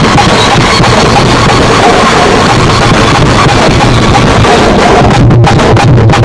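Very loud dance music with a drum beat; about five seconds in, the drum hits stand out more sharply and evenly.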